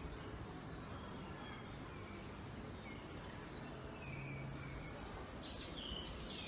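Birds chirping over a faint, steady background hum: a few short calls scattered through, and a louder cluster of calls near the end.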